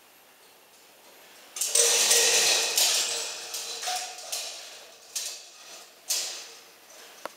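Thin metal band of a kinetic sculpture scraping and slapping across a tiled floor. It is quiet at first, then a sudden loud metallic rasp comes about a second and a half in and fades over a couple of seconds. Shorter scrapes follow about five and six seconds in, with a click near the end.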